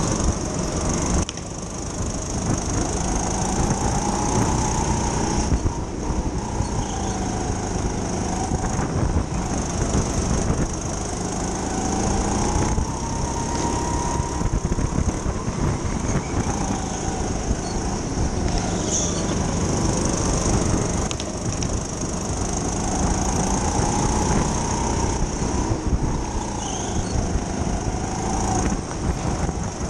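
Racing kart's motor running hard during a race, its pitch rising and falling every few seconds as the kart speeds up and slows, over a steady loud rumble and hiss.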